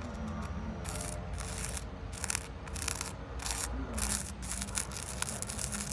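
Plastic spoon rubbing coloured sand onto an adhesive sand-art card, a scratchy stroke repeated about twice a second.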